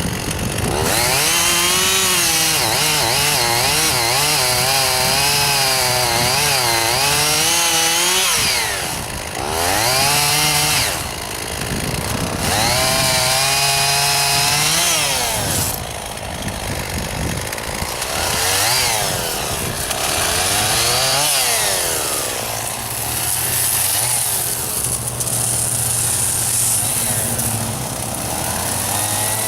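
Gasoline chainsaw cutting wood. It runs at full throttle for several long stretches, with short drops and brief blips in between, then settles to a steady idle for the last several seconds.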